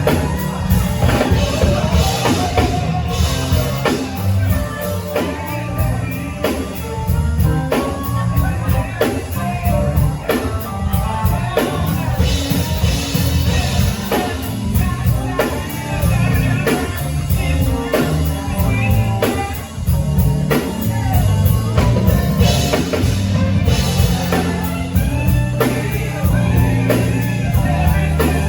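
Live band music with a singer, over a steady drum beat.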